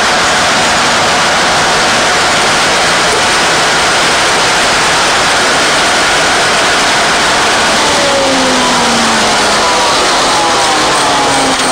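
GE 750 hp Bo-Bo diesel-electric locomotive's engine running loudly as it comes close, with a faint falling whine from about eight seconds in.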